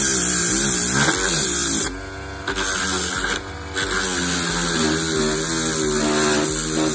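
Background music: a song with a wavering sung melody over a steady bass line.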